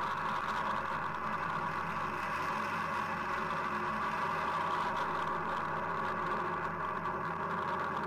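Steady rushing roar of a climbing Falcon 9 rocket's engines, heard through the launch broadcast feed as an even noise with a steady low hum underneath.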